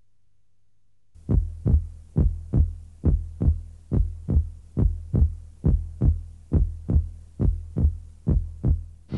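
Heartbeat sound effect: steady low thumps, about two a second, over a low hum, starting about a second in.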